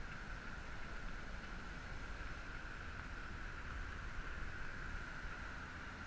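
Steady rushing noise of a bicycle ride picked up by an action camera: wind, tyres rolling on the concrete path and car traffic on the road alongside, blended into an even hiss with a constant hum in it.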